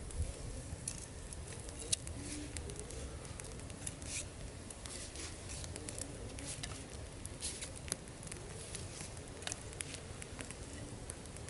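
Small wood campfire catching in its kindling, crackling with irregular sharp pops and ticks over a low steady rumble.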